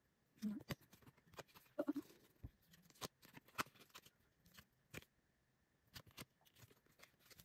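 Photocards being flipped through by hand: quiet, irregular clicks and ticks as the stiff cards slide off the stack and tap against each other. Two short faint voiced sounds come in the first two seconds.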